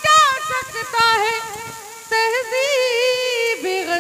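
A woman singing Urdu verse in tarannum, holding long, ornamented melodic phrases that glide in pitch, with a brief break about two seconds in.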